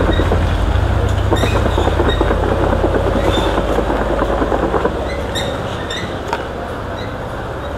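Sliced guava and spice mix being shaken hard in a lidded plastic jar to coat the slices with masala. It makes a fast, continuous rattling over a low rumble, which stops about five seconds in.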